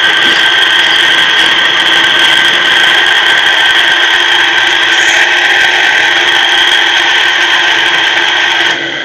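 Electric madhani (churner) motor running freely at full speed with a steady, high-pitched whine, its jammed shaft bush freed by cleaning. Near the end the sound drops and begins to fade.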